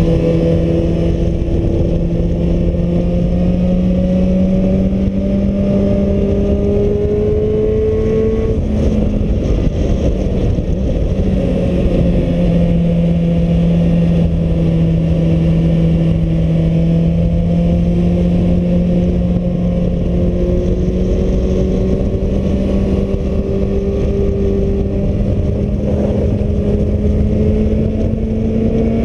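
Suzuki Bandit's inline-four engine pulling along at riding speed, its note slowly climbing, dipping briefly about nine seconds in, then climbing again. Heavy wind noise on the GoPro's microphone runs underneath it.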